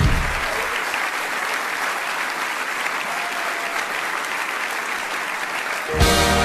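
Audience applauding, steady throughout, with a short burst of band music starting near the end.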